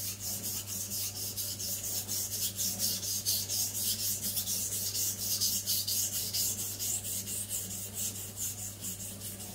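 Zwilling Five Star compact chef's knife being rubbed back and forth on a wet whetstone, a steady scraping rasp in quick, even strokes. The blade face is being thinned at a raised angle of about 5 to 6 degrees to make it more convex toward the edge.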